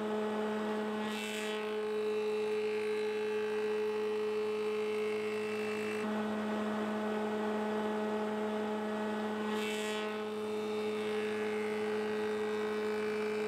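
Spindle moulder running steadily with a power feeder, a hum with several steady tones, as a square length of timber is fed past a radius cutter block. A short hissing burst comes about a second in and another near ten seconds.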